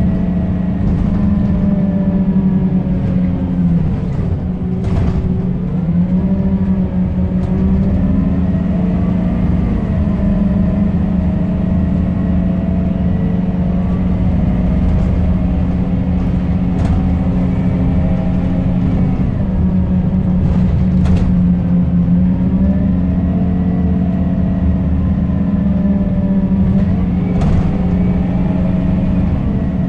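Scania K270UB bus's rear-mounted five-cylinder diesel engine running under way, heard from inside the saloon. A steady low drone is overlaid by a whine that rises and falls several times as the bus pulls away, changes gear and slows. A few sharp clicks and rattles come through.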